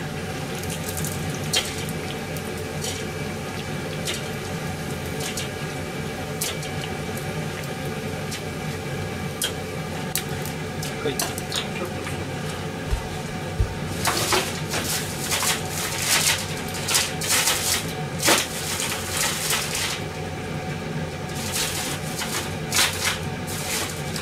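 Cooking utensils and dishes clinking and clattering over a steady hiss of oil deep-frying, the clatter busiest from about halfway through.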